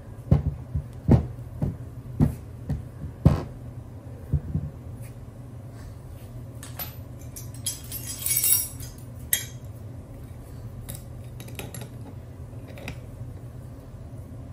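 Several sharp metal knocks and clinks in the first few seconds as an upper control arm fitted with a uniball press tool is handled and set down on the bench. About eight seconds in comes a brief rattling jingle of hand tools being sorted in a tool bag, then a few light clicks.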